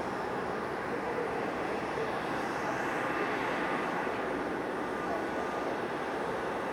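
Steady jet engine noise from a Boeing 737-800 airliner, an even rushing sound with no distinct whine or pitch changes.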